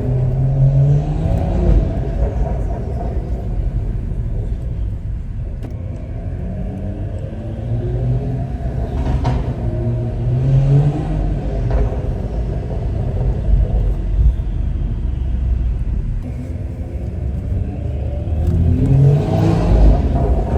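Stage 2 tuned BMW 540i with a custom exhaust accelerating hard three times, its engine note rising right at the start, about eight seconds in and again near the end, with a low exhaust rumble between the pulls.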